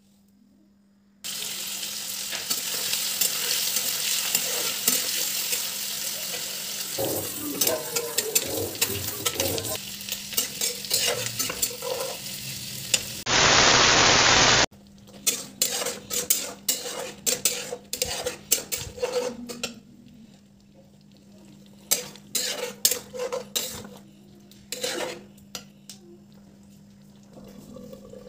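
Food frying and sizzling in a steel pan while a spoon stirs and scrapes against the metal: a loud, crackling sizzle for the first ten seconds or so, then a quieter sizzle broken by clatters of the spoon on the pan. About halfway through, a second and a half of TV-static hiss cuts in, with a faint steady hum underneath throughout.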